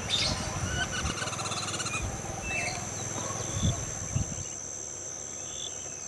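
Natural ambience: birds calling in short whistled notes, with a rapid run of repeated notes in the first two seconds, over a steady high-pitched insect drone. A couple of soft low thumps come just past the middle.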